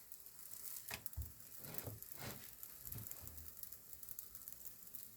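Faint sizzling of a wheat pancake frying in oil in a hot pan, with a few soft knocks in the first three seconds.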